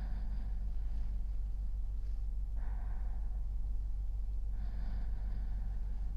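A man's slow, even sleeping breaths close to the microphone, one soft breath every two seconds or so, over a steady low hum.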